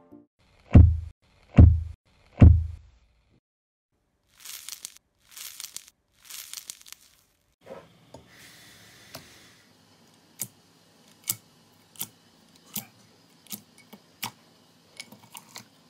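Three deep booms, each falling in pitch, from an intro sound effect. Then three short hissing swishes, and then hands pressing and squeezing rainbow jelly in a glass dish, with a sharp squishing click about every three-quarters of a second.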